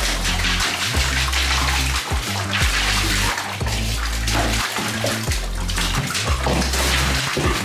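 Tap water running into a bathtub and splashing around a golden retriever puppy's paws as he paws and noses at the drain, with background music and its steady bass line over it.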